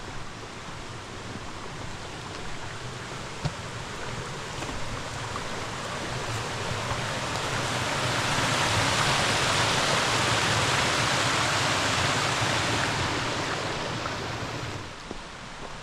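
Water rushing and splashing over a small creek waterfall, a steady hiss that grows louder through the middle and falls away shortly before the end.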